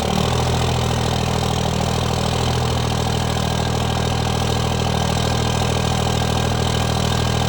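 Diesel engine idling steadily after a cold start.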